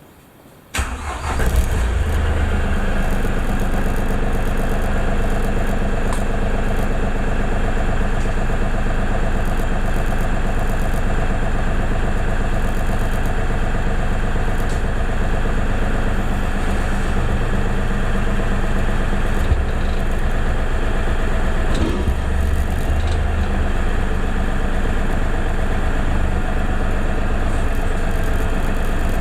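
LS MT240e compact tractor's diesel engine running steadily and loudly, heard close up from the roll bar; it comes in suddenly about a second in.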